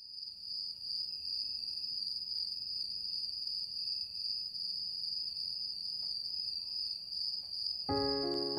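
Crickets trilling in a steady, continuous high chirr as night ambience. Near the end, soft music with a chord of gentle sustained notes comes in under it.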